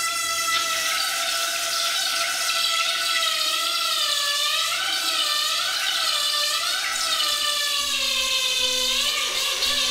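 Brass water tap singing with a high whine over the sound of running water. The whine holds steady at first, then wavers up and down from about four seconds in as the handle is worked, and slides lower near the end.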